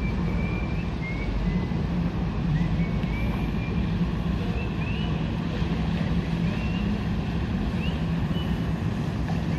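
A boat engine running steadily with a constant low hum, while a few short, high chirps come and go above it.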